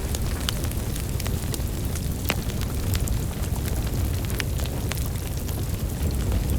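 Wood fire burning with a steady low rumble and irregular sharp crackles and pops, one louder pop a little past two seconds in.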